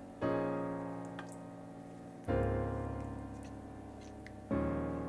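Background piano music: slow chords struck about every two seconds, each left to ring and fade.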